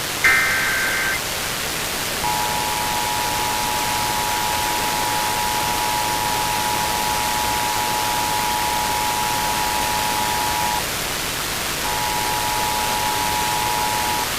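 Emergency Alert System broadcast: the last of the SAME digital header bursts, a warbling data chirp about a second long, then the two-tone EAS attention signal. The two tones sound together for about eight seconds, stop briefly, then return for about two more seconds. A steady hiss of static runs underneath.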